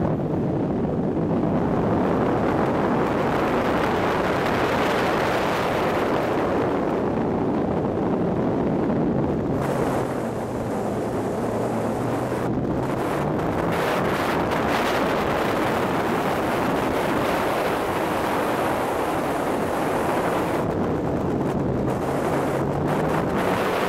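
Turbocharged Nissan S13 Silvia engine pulling hard through a sprint lap, mostly buried under heavy wind noise on the microphone. The engine note drops about ten seconds in and climbs again near the end.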